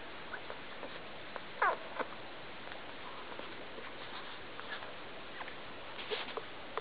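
Newborn Labrador retriever puppies squeaking and snuffling while they nurse, over a steady hiss. One louder squeal falls in pitch about a second and a half in, and short squeaks come scattered through the rest.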